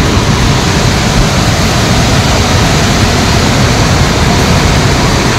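Loud, steady rush of a flooded mountain river in spate: a dense, unbroken wash of fast-flowing muddy water.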